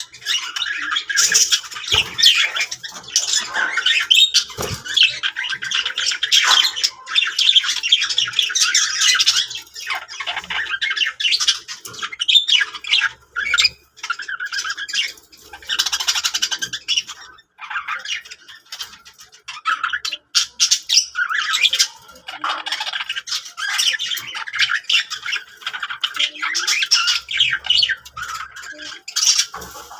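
Budgerigars chattering: a dense, near-continuous run of short chirps, squawks and warbles with only brief pauses.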